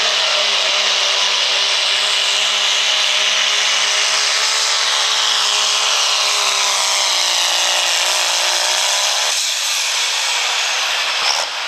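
Turbocharged diesel engine of a second-generation Dodge Ram pickup held at full throttle while pulling a sled, a steady high-revving drone with a high turbo whine over it. The engine note falls away about nine seconds in as the pull ends.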